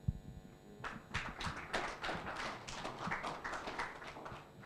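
Faint, scattered audience applause, starting about a second in and dying away near the end.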